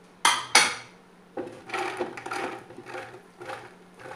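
Two sharp knocks as a plate is set down on the stone countertop, then fresh-cut corn kernels tipped and pushed by hand from a bowl into a blender jar, an irregular soft patter and scraping.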